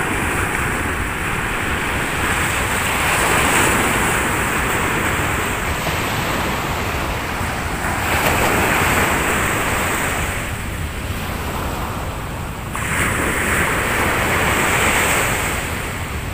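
Sea waves breaking and washing up the sand, swelling and fading in three long surges, with wind buffeting the microphone.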